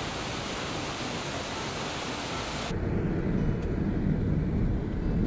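Waterfall rushing in a steady hiss, which cuts off abruptly about two and a half seconds in to the low rumble of a car driving on a wet road, heard from inside the vehicle.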